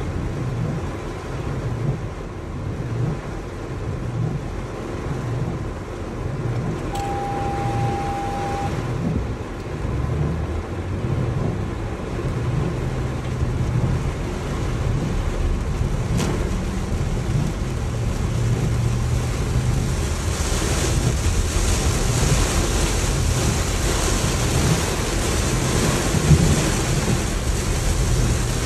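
Heavy rain on a moving car, heard from inside the cabin over a steady low rumble of tyres and engine. The rain hiss grows heavier about twenty seconds in. A short steady beep sounds about seven seconds in.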